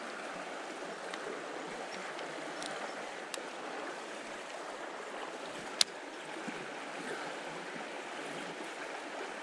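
Shallow creek water running steadily over a rippling riffle, with a single sharp click a little after halfway through and a couple of fainter ticks before it.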